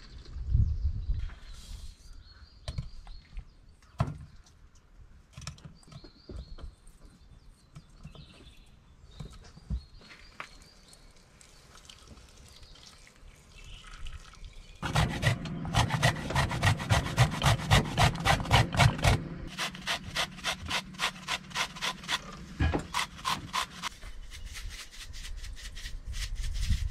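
Scattered light clicks and knocks, then, about halfway in, a fast even run of rubbing or scraping strokes, several a second, that slows and stops about nine seconds later.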